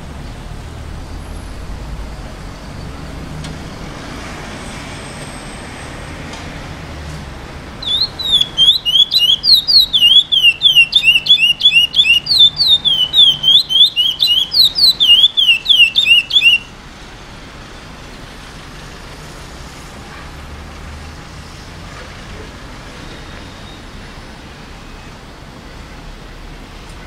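Curió (lesser seed-finch) singing one burst of about eight seconds of rapid, repeated whistled notes that slur up and down, in the praia grande song style; it is a young bird in brown plumage just beginning to sing. A steady low rumble sits underneath and goes on after the song stops.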